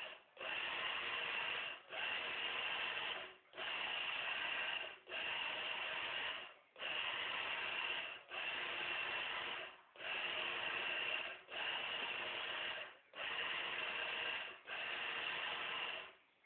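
Valiant Roamer floor robot's drive motors whirring in a steady rhythm of short runs, about a second and a half each with brief pauses between, as it steps through a programmed drawing of triangles.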